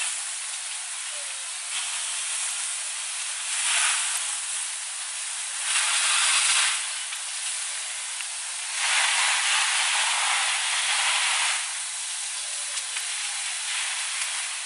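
Water spraying from a fire hose: a steady, loud hiss that swells and eases three times.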